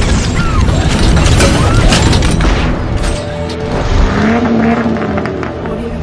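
Cinematic intro sound effects: a sports car engine revving with booming hits, layered over music.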